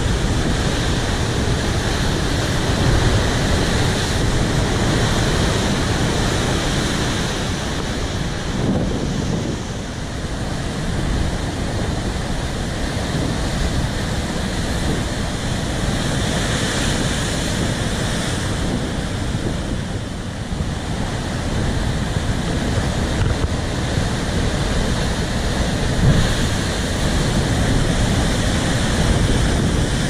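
Big ocean waves breaking against coastal rocks: a loud, continuous rushing of surf and white water that swells a little at times, with wind buffeting the microphone.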